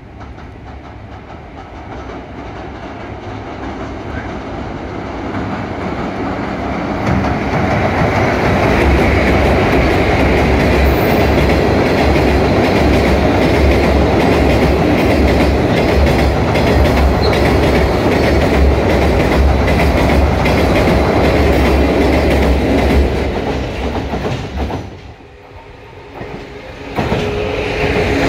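Freight train of cement tank wagons crossing a steel girder railway bridge: a steady, rhythmic clickety-clack of wheels over the rail joints, building up over the first several seconds as the train comes on. The sound drops away about 25 seconds in as the last wagon clears, then another train approaches near the end.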